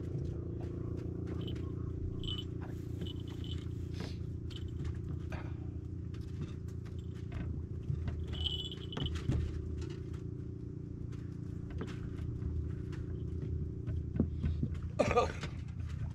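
A steady low engine drone with many small clicks and knocks over it, a few short high chirps, and a brief loud shrill sound near the end.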